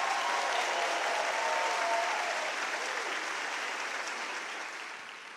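A congregation applauding, steady at first and then dying away over the last couple of seconds.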